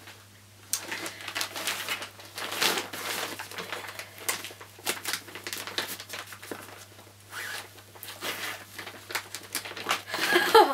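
Brown paper mailing bag and plastic wrapping crinkling and rustling as they are handled and pulled open, in irregular crackles.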